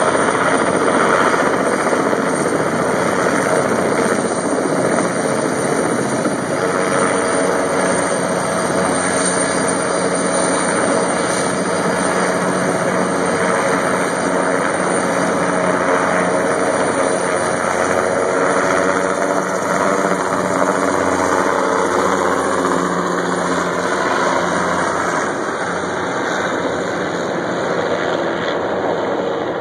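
Cargo helicopter hovering with a long line slung beneath it: a steady, loud rotor and engine drone that eases off a little near the end as the helicopter moves away.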